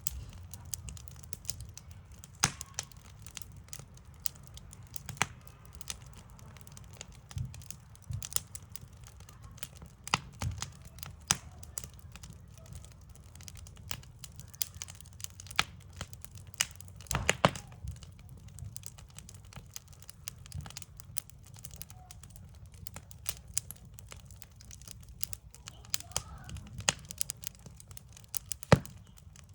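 Backyard wood fire crackling, with irregular sharp pops and snaps, the loudest one near the end.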